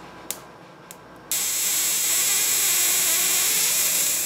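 High-voltage DC arc from an Acopian 10 kV power supply jumping between two alligator clips. It strikes suddenly about a second in after a few faint clicks, then burns as a steady, loud hissing buzz.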